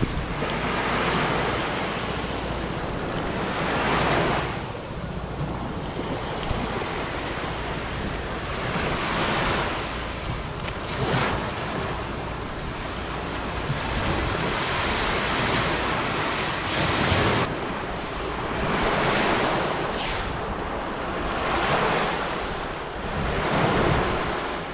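Sea surf washing up a sandy beach, rising and falling in a swell every few seconds, with wind rumbling on the microphone.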